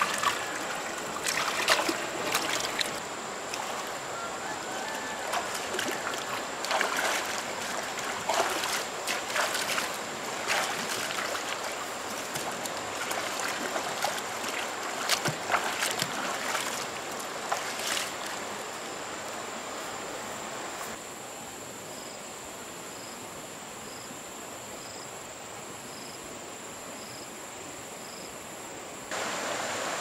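Hands splashing and scooping mud in shallow, muddy river water, many irregular splashes over the steady sound of flowing water. In the last third the splashing stops and only a quieter, steady water sound remains.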